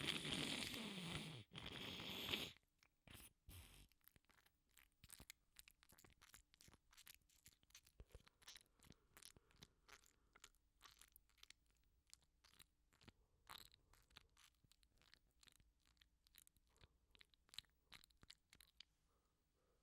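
A person blowing their nose hard in a few blasts, with a falling honk, stopping about two and a half seconds in. Then faint, scattered crackling rustles.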